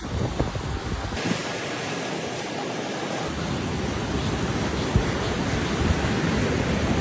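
Sea surf breaking on the shore, a steady rushing hiss, with wind buffeting the microphone in gusty low rumbles.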